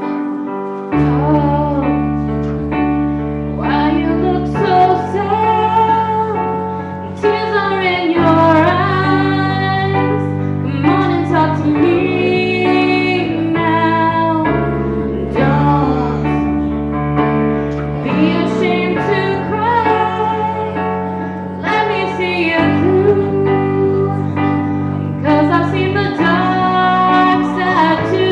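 A woman singing a slow song over keyboard accompaniment, with held bass notes and chords that change every couple of seconds.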